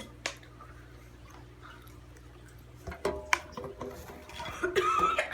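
Takis rolled tortilla chips being crunched in the mouth: a few sharp crunches about three seconds in, with a brief voice-like sound near the end.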